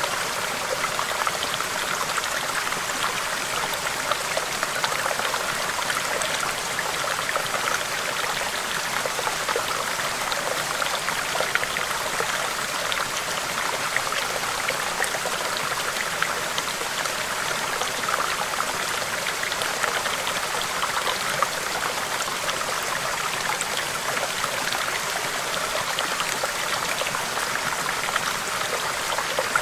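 A small, shallow stream babbling over rocks: a steady rush of flowing water, with many small splashes and trickles spattering through it.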